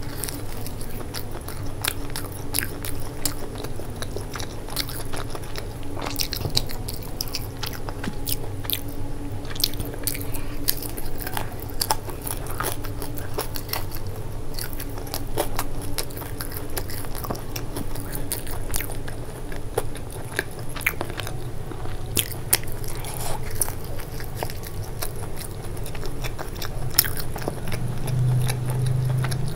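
Close-miked biting and chewing of crisp deep-fried momos: many sharp crunches and crackles of the fried pastry shell over continuous moist chewing.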